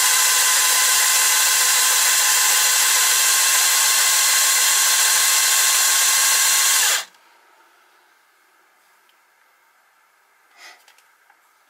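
Cordless drill spinning the milling spindle of a lathe cross-milling attachment while the cutter is fed along a hex brass bar: a steady, high-pitched whine over a hiss that stops suddenly about seven seconds in. A faint click follows near the end.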